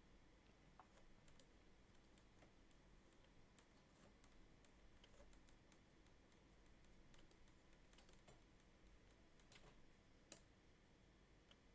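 Near silence: faint room tone with scattered soft clicks and taps from drawing at the computer, one slightly louder click near the end.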